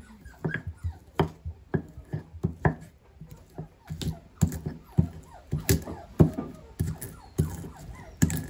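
Stone pestle pounding spices (garlic, candlenuts, ginger, shallots) in a stone mortar (cobek and ulekan): sharp, somewhat irregular knocks about three times a second.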